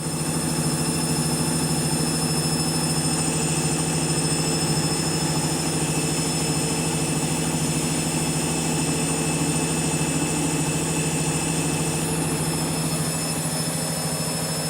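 Candy front-loading washing machine on its final spin, set to 1200 rpm: a steady humming whine of the drum spinning at high speed. It steps up in loudness right at the start, then holds even.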